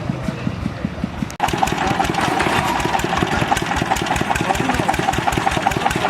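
An engine idling with an even beat of about eight pulses a second. The sound cuts out briefly about a second and a half in and comes back louder.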